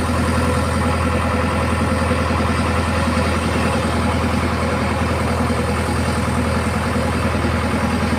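Heavy vehicle's diesel engine idling steadily at a constant speed, with an even, rapid firing beat and no revving.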